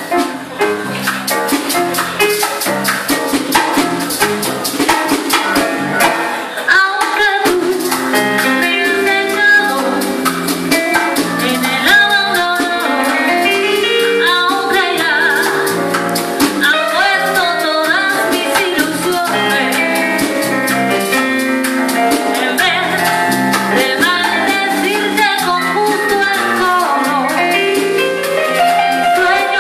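Live Cuban jazz band playing: electric bass, keyboard, drum kit and congas, with a woman singing lead into a microphone over the groove.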